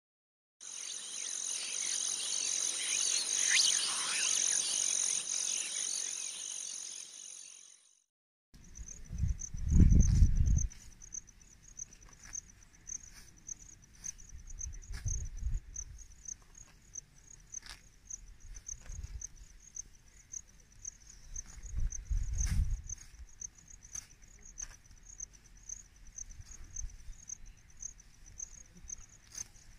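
Insects chirping in a steady, fast-pulsing high trill. The first several seconds are louder, with a hiss under the trill, and the sound cuts out briefly about eight seconds in. A low thud comes about ten seconds in and another about twenty-two seconds in.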